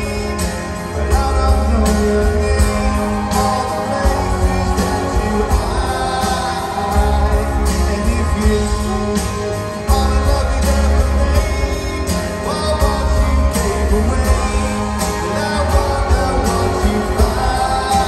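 Live rock band playing: a man sings the lead over acoustic guitar, electric guitar and a full band with a heavy bass line and a steady beat.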